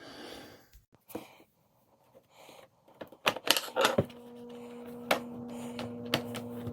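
Scattered metallic clicks and taps of a nut driver on the dishwasher's 5/16 mounting nuts. A steady low hum starts about four seconds in.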